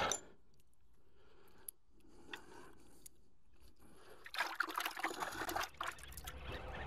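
Water splashing and trickling in a bucket, a short burst of splashing about four seconds in.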